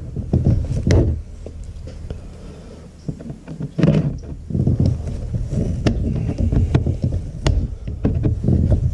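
Plastic trim-removal tool scraping and prying at a round plastic screw-cover cap on a vinyl door panel, with sharp clicks and knocks over a low rumble.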